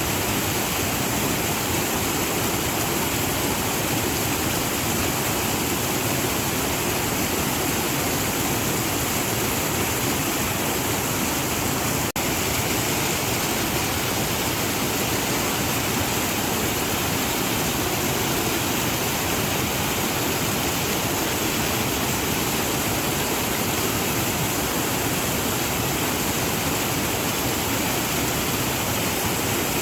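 Waterfall rushing steadily, an even roar of falling water with a brief dropout about twelve seconds in.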